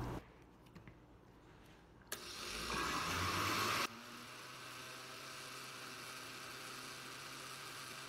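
Electric countertop blender with a glass jar switched on with a click about two seconds in, running up to speed as it blends a liquid cake batter of eggs, sugar, milk and margarine. The sound cuts off abruptly just before the four-second mark, and a fainter steady hiss follows.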